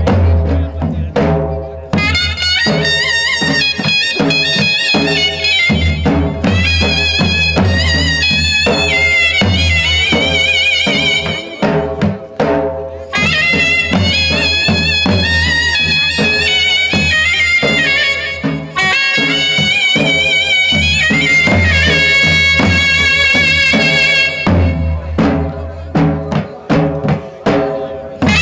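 Gujarati folk music for a Charani raas: a reedy wind melody with wavering pitch over a steady drum beat.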